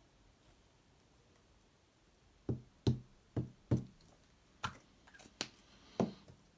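About seven dull knocks at irregular half-second intervals, starting about two and a half seconds in, as glued pieces of thick 1 mm card are tapped and set down on the work surface while being lined up.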